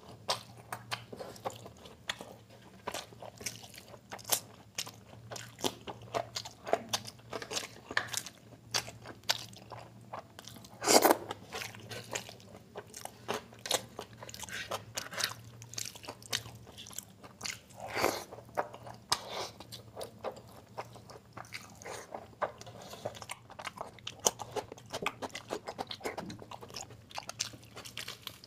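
Close-miked chewing and biting of mutton biryani and mutton curry eaten by hand, a steady stream of short clicks and crunches. The loudest comes about eleven seconds in.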